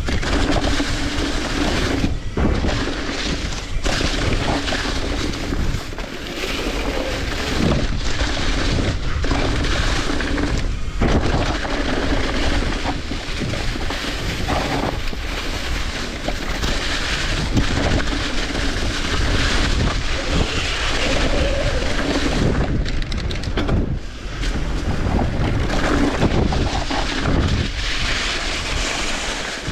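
Sawmill machinery running: a steady hum that comes and goes under loud, rough, continuous noise.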